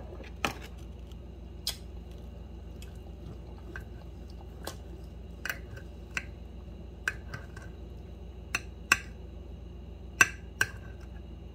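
Steel fork and knife clicking against a plate while cutting into a pan-fried chuck steak: a dozen or so sharp ticks at uneven intervals, two of them louder near the end, over a steady low hum.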